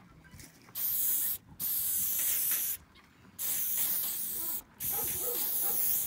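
Antiseptic wound spray hissing in four bursts of about a second each onto a horse's coat.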